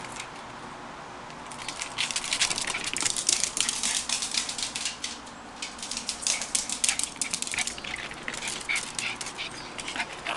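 Two small chihuahuas playing: a fast, irregular run of clicks and scrabbling, typical of dog claws skittering on hard floors, with a short lull about halfway through.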